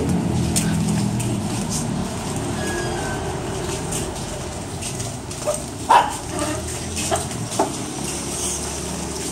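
A low, steady engine drone that fades over the first couple of seconds, then a scatter of sharp clicks and knocks, the loudest about six seconds in.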